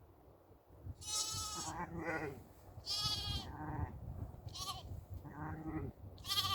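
Sheep bleating repeatedly: about four short high-pitched bleats, with lower bleats in between.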